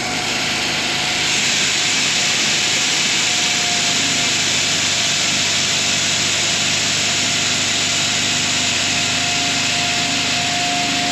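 Seed tender conveyor running, with treated soybeans pouring from its spout into a plastic planter seed box as a loud steady hiss over a constant whine from the drive. The hiss of the flowing seed grows about a second in and then holds steady.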